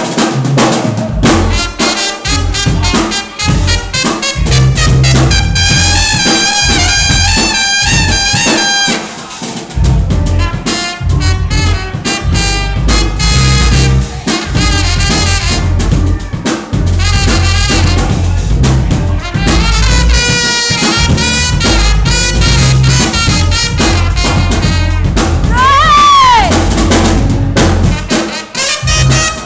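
Live band playing: horns such as trumpet over a drum kit and bass, with long held horn notes and one horn note bending sharply downward near the end.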